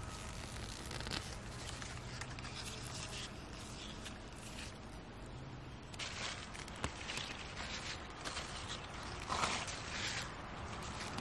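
Vegetables being harvested by hand: onions pulled up out of garden soil, then, from about six seconds in, mustard green leaves picked off the plants. It is a run of short, crisp handling noises, loudest about nine seconds in.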